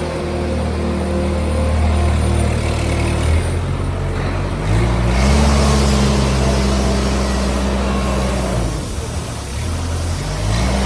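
Diesel engine of a Bull Smart Kid backhoe loader running and being revved: it climbs to higher revs about five seconds in, holds there, drops back around nine seconds, then revs up again near the end.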